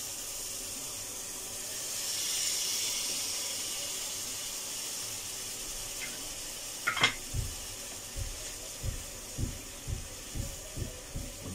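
Caramel and sugar syrup boiling hard in an aluminium saucepan, a steady bubbling hiss, just after the syrup was ladled in to thin the caramel. About seven seconds in there is a sharp clink, and then a silicone spatula stirs the pan with soft knocks about twice a second.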